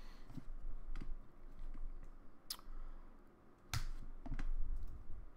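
A few separate clicks of computer keyboard keys, the two loudest about two and a half and nearly four seconds in, as a typed terminal command is entered.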